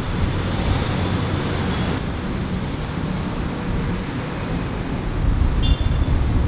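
Street traffic: a steady rumble of passing cars, with wind buffeting the microphone. It grows louder about five seconds in.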